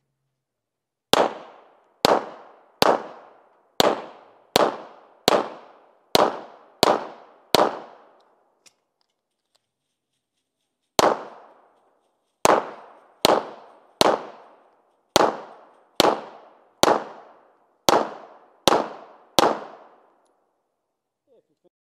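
Pistol shots fired in two strings: nine shots over about six seconds, a pause of about three seconds, then ten more. Each is a sharp crack with a brief ringing tail.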